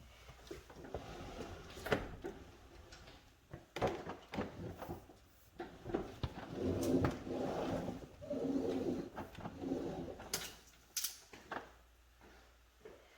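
A GE refrigerator being pulled out from its place: knocks and clacks, with scraping as the cabinet slides across the floor, longest and loudest from about six to ten seconds in.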